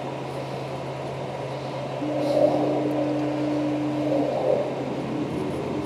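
3D printer running, giving a steady low hum; a steady higher whine from its motors comes in about two seconds in and cuts off about two seconds later.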